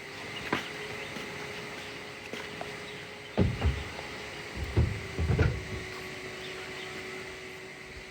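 A few dull clunks and knocks, the loudest clusters about three and a half and five seconds in, over a faint steady hum.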